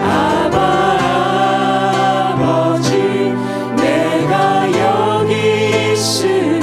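A man and a woman sing a Korean worship song together into microphones over a band accompaniment.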